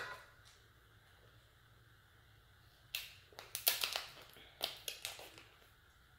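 Cooked lobster tail shell cracking and crackling as it is pried open by hand and with a utensil, with a run of sharp cracks about three to five seconds in.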